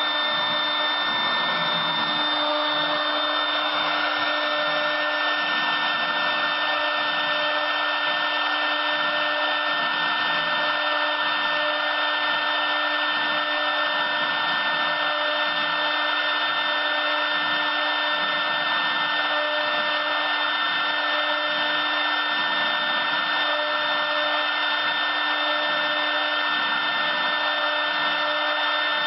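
LD-1325 CNC wood router's spindle running and cutting wood on its rotary axis: a steady high whine over a hiss of cutting.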